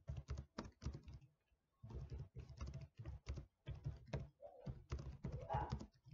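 Typing on a computer keyboard: a quick run of key clicks, with a short pause about a second in.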